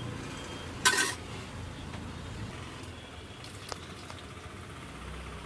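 Oil sizzling in a large iron kadai as balls of undampori batter deep-fry, over a low steady rumble. About a second in there is one sharp metallic clank of the ladle against the pan, and later a much fainter click.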